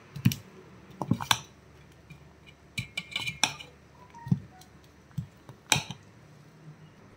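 Steel spoon stirring thick fermented sorghum batter in a stainless steel bowl, knocking and clinking against the bowl's side in short irregular strikes, several in quick succession.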